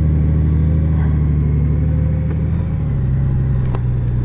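Honda Gold Wing motorcycle engine running steadily under way, its pitch easing down slightly about three seconds in, with one short sharp click near the end.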